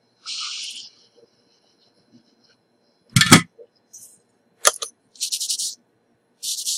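Small hard objects being handled on a workbench: a loud knock about three seconds in, a couple of sharp clicks, and several short rustling, clinking bursts.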